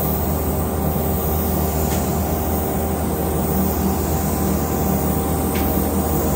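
Automated spray-finishing line running: a steady hiss of finish spraying from the nozzle over a constant machine drone, with two faint clicks, about two seconds and five and a half seconds in.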